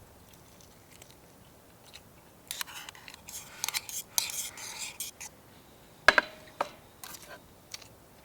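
Eating sounds: a couple of seconds of crunchy chewing, then a few sharp clicks of utensils against a bowl, the loudest about six seconds in.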